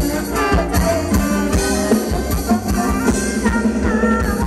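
Live band playing Thai ramwong dance music: a steady drum beat under held melody notes.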